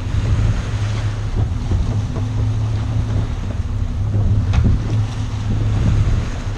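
Boat engine running with a steady low drone, with wind buffeting the microphone and the rush of water and waves against the hull.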